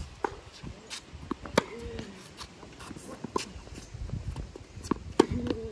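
Tennis rally on a hard court: a racket striking the ball with sharp pops every second or two, the ball bouncing in between. A short voice-like sound follows two of the loudest hits.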